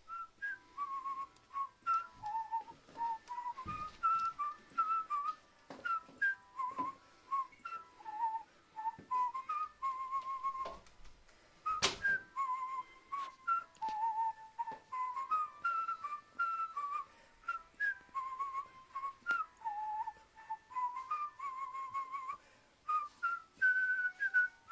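A whistled tune of short, stepping notes, playing as background music, with scattered short clicks and one sharp click about twelve seconds in.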